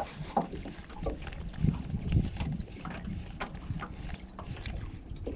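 Wind rumbling on the microphone out on the water, with scattered light knocks and clicks of fishing gear on a boat.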